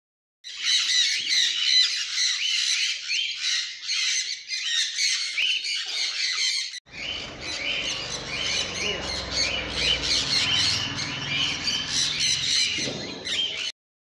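A flock of sun conures squawking and screeching together in a dense, overlapping chorus of shrill calls. About halfway through, a low rumble joins beneath the calls, and the sound cuts off suddenly just before the end.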